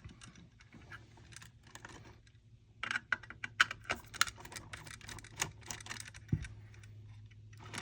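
Irregular small clicks and ticks of a screwdriver and wires being worked at a wall outlet's terminals. The clicks come in short clusters, loudest about three to four seconds in.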